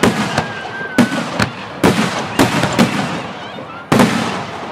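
Aerial firework shells (2.5- to 5-inch) bursting overhead in quick succession: about eight sharp bangs in under five seconds, each followed by a rolling echo. A faint thin whistle sounds in the first second.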